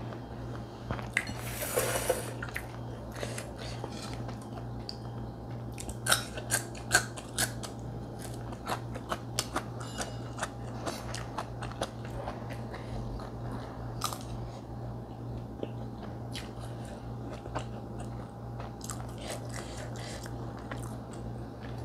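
Fried rice being chewed, with sharp clicks and scrapes of a metal spoon against a ceramic bowl, the loudest clinks a few times about six to seven seconds in. A short breathy hiss comes about two seconds in, over a steady low hum.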